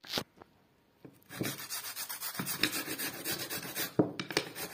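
A raw potato being grated on the fine side of a flat metal grater: repeated rasping strokes, starting about a second in, with a sharp knock near the end.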